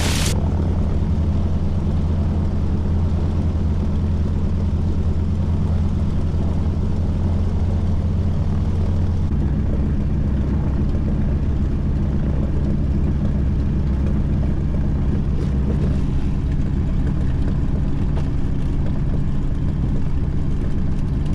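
AT-6 Texan's nine-cylinder Pratt & Whitney R-1340 radial engine running at taxi power, heard from inside the open cockpit as a steady low drone. Its note drops a little about nine seconds in.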